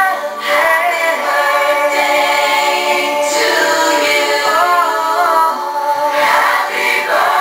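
Music with singing playing from a television, with long held sung notes.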